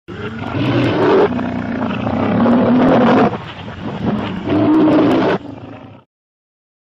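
Lion roaring in about three long bouts, the roar of the MGM logo, ending abruptly about six seconds in.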